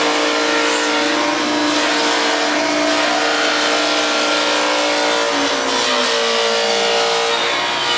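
Techno Isel CNC router running, a loud, dense machine noise with several steady hum tones. One of the tones slides down in pitch from about five seconds in.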